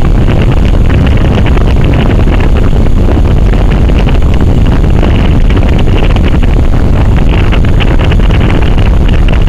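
Strong storm wind buffeting the camera microphone: a loud, unbroken low rumble with crackling on top, as trees thrash in the wind near a tornado.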